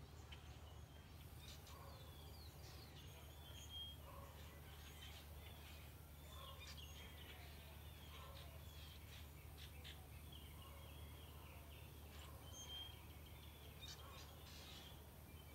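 Faint birdsong: many short chirps and trills scattered throughout, over a steady low hum.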